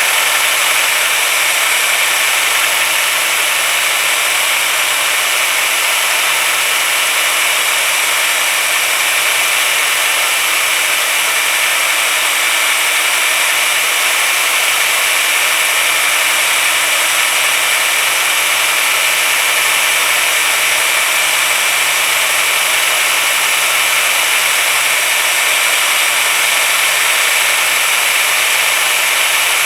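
Drill running steadily with a polishing pad spinning against metal, working Brasso in toward a mirror finish; an even whine with no pauses.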